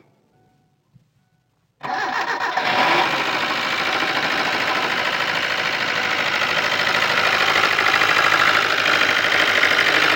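Car engine started about two seconds in, then running steadily with a rapid knock, the knocking that the owner is showing as a fault.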